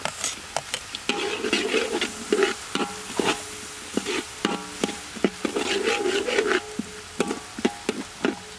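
Metal spatula scraping and clinking against a steel wok while stirring chopped shallots and garlic that sizzle in hot oil.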